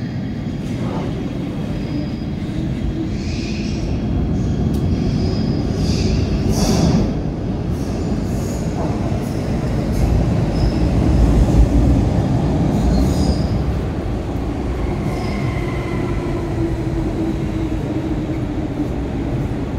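MTR M-train metro train running into the station along the platform. Steady rumble of wheels on rail that swells to its loudest about eleven seconds in, with a few sharp clicks around seven seconds in and faint wheel squeal in the second half.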